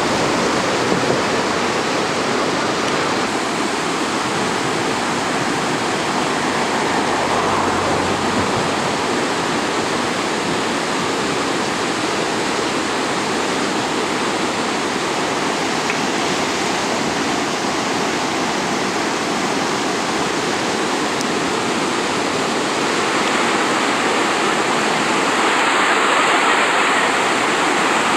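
Steady rush of whitewater river rapids, growing a little louder near the end.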